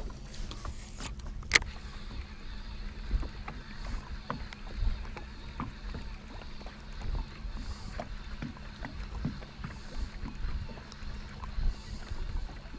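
Small waves lapping and slapping against a fishing boat's hull in uneven swells, with scattered light knocks and clicks on board and one sharp click about a second and a half in.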